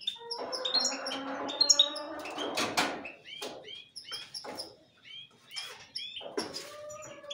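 Caged goldfinches and canaries calling: many short, high chirps that drop in pitch, in quick runs. A couple of sharp clicks come about three seconds in and again near the end.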